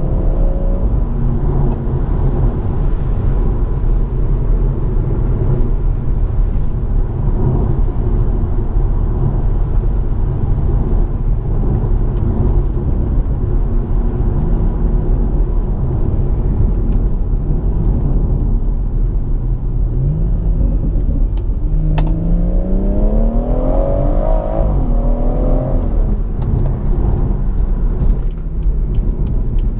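BMW M140i's turbocharged 3.0-litre straight-six with the M Performance exhaust, heard from inside the cabin while driving: a steady low drone and rumble. About two-thirds of the way through, the revs climb for a few seconds under acceleration, then drop away. A sharp click comes as the revs rise, and quick light ticks come near the end.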